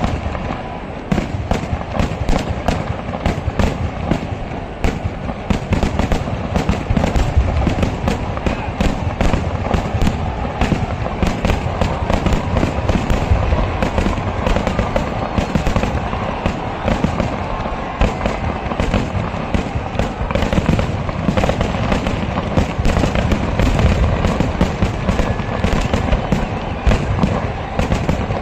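Kerala temple-festival fireworks (vedikettu) going off in a dense, unbroken barrage, many blasts a second piling into one continuous crackling rumble.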